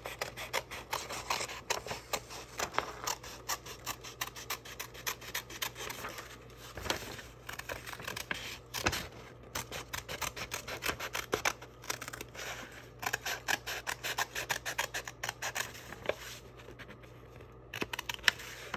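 Scissors cutting paper: runs of short, quick snips with brief pauses as a drawing is cut out along its outline.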